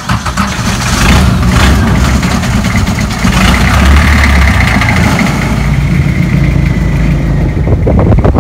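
Longtail boat's stern-mounted engine running loudly and steadily as the boat travels along the creek.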